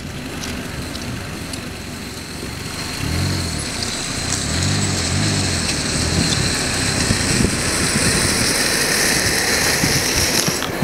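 A car rolling slowly along an asphalt street, with steady engine and tyre noise that grows louder about three seconds in. The engine note rises and falls a few times.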